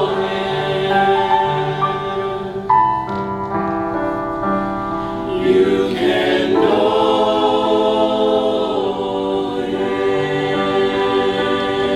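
Mixed choir of women's and men's voices singing an anthem in several-part harmony, holding long sustained chords that shift together every few seconds.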